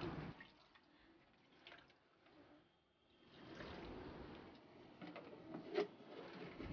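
Water poured from a plastic bowl into a blender jar of chopped vegetables, a pour of a second or two beginning about halfway through, followed by a sharp plastic click as the blender lid is fitted.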